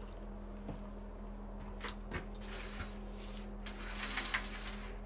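Plastic egg trays sliding and scraping along the metal rails of an incubator rack, with a few clicks and knocks as a tray is handled and pushed in, the longest scrape near the end. A steady low hum runs underneath.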